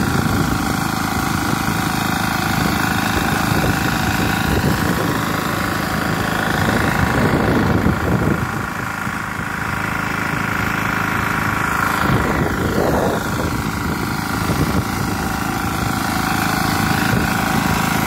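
BCS 740 walk-behind power tiller's engine running steadily under load as the machine tills between crop rows, a little quieter for a moment about halfway through.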